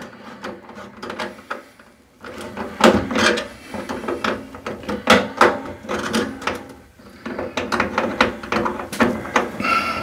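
Screwdriver turning a band clamp on a metal dryer vent duct: irregular metal clicks, scrapes and rattles, with a brief faint squeak near the end.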